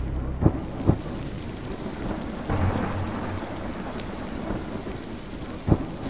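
Synthesized sound-design effect, the "SFX To The Rivers" preset from the SHORTNOISE Kontakt library, playing as a steady rain-like noise wash. Dull low thumps cut through it, two close together about half a second in and one more near the end, with a swell of rumble about midway.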